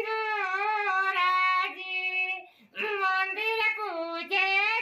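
A man singing a folk wedding song in a high falsetto that imitates a woman's voice: one long held phrase, a short break about two and a half seconds in, then another phrase.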